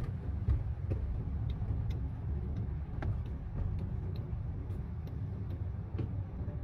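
Low steady rumble of a manual Daihatsu car's engine and tyres heard inside the cabin as it creeps along slowly, with light ticks about twice a second.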